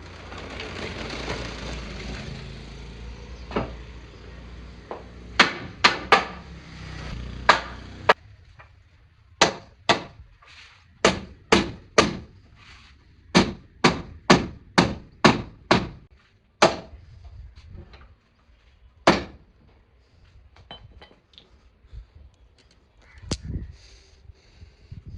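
A tool striking wood in about twenty sharp, irregularly spaced blows, most of them between about five and nineteen seconds in. Before the blows there are several seconds of rough rushing noise, and a few fainter knocks come near the end.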